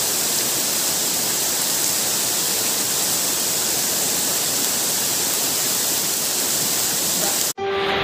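Steady rushing hiss of heavy rain and a flowing river, even and unbroken. It cuts off abruptly near the end, and music begins.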